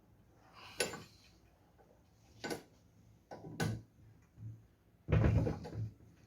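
Bench drill press chuck being tightened with its chuck key: three separate metal knocks, then a louder, longer rattle near the end.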